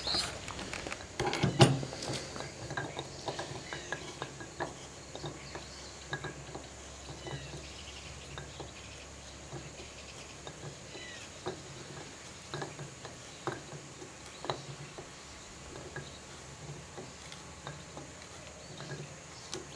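Hand auger boring through a green-wood joint: faint crunching and creaking in a soft repeating rhythm as the bit is turned and cuts into the wood. A sharp knock comes about a second and a half in.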